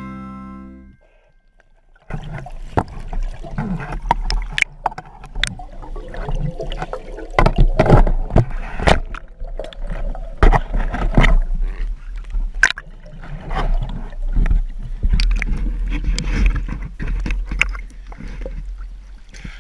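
Water sloshing and gurgling around a handheld camera as a diver moves through the water up toward the surface, with many sharp irregular knocks and clicks of handling, over a steady low hum.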